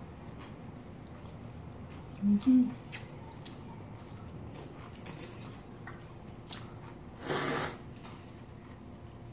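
Cold noodles being eaten with chopsticks: quiet chewing and small clicks, two short hummed 'mm' sounds about two seconds in, and a loud half-second noodle slurp a little after seven seconds.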